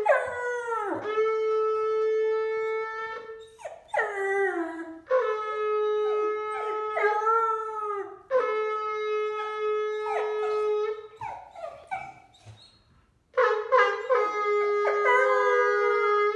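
Shofar blown in a series of long held blasts, each one to three seconds, while a bloodhound puppy howls along, its howls sliding up and down in pitch over the horn's steady note. There is a quieter break of about two seconds before the last blast.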